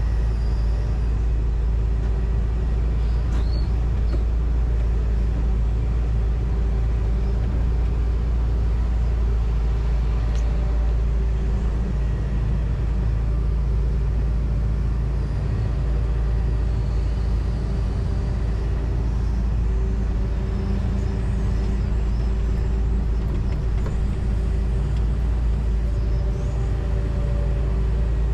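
John Deere 245G excavator's diesel engine running steadily under working load, heard from inside the cab as a deep, even drone with a faint steady hum over it.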